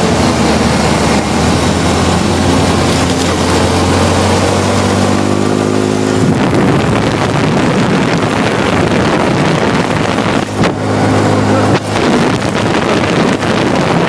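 An engine running steadily with wind noise on the microphone; its pitch rises and holds briefly about five seconds in, then drops back.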